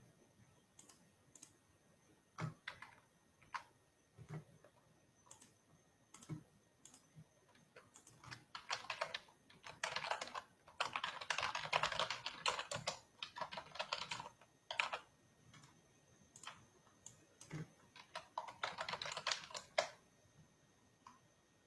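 Typing on a computer keyboard: a few scattered key clicks, then a long run of fast typing about halfway through and a shorter run near the end.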